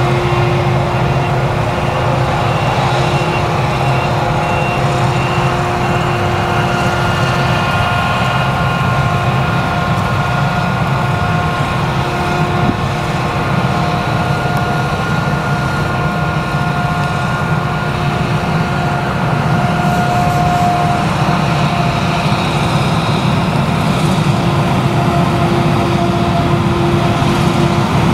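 Claas Jaguar 970 forage harvester with its MAN V8 engine running under load while chopping sorghum: a steady heavy drone with several high whining tones held over it. It grows slightly louder about two-thirds of the way in.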